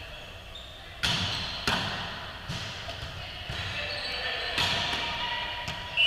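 A volleyball being struck during a rally: two loud, sharp slaps about a second in, then several softer hits. Each hit echoes in the large gym.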